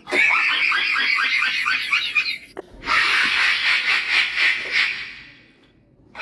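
Two laughing sound effects in a row: the first a rapid string of short laugh pulses lasting about two and a half seconds, then, after a brief break, a breathier, hissier laugh that fades out near the end.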